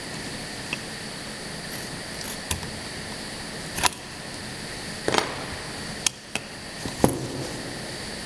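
Automatic through-hole component insertion machine running: a steady mechanical hum with a high whine, broken by sharp, irregular clacks about once a second as it works.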